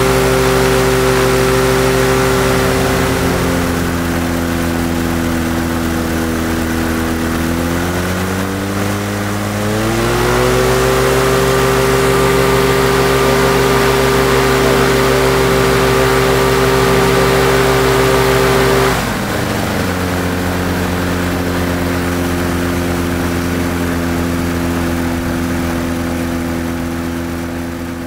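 RMZ-640 two-cylinder two-stroke engine running steadily on a trike frame. It slows a little a few seconds in, speeds back up about a third of the way through, and is throttled back sharply past the middle to a lower, steady speed.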